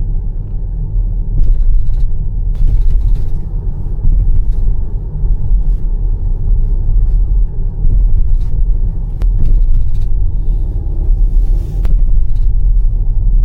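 Cabin of a Jeep Grand Cherokee driving over bumps: a dull, hollow low rumble and thuds from the tyres and suspension, with a few sharp, crisp crackling rattles on top, like chopsticks thrown onto a glass plate. The crackle is a loose interior part set rattling by the jolts, traced to the rear seat.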